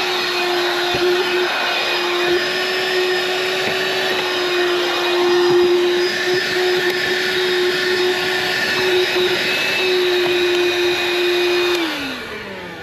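20-volt cordless handheld vacuum running steadily with a constant motor hum and hiss. Near the end it is switched off, and the motor winds down with a falling pitch.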